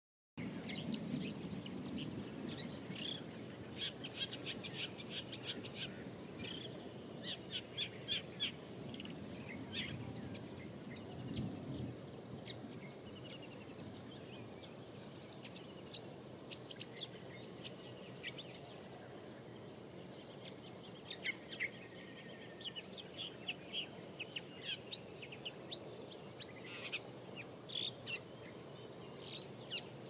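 Long-tailed shrike calling: clusters of short, varied chirping notes that come again and again with short gaps between them, over a steady low background noise.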